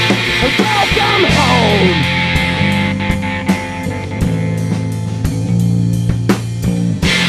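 A live rock band playing an instrumental passage on electric guitar, bass guitar and drum kit. Several falling pitch slides come in the first two seconds, then the drums keep time with steady cymbal strikes, and a loud crash hits near the end.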